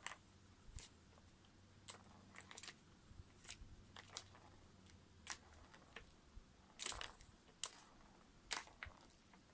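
Faint, scattered sharp clicks and crunches, about ten of them at irregular intervals, over a quiet room background.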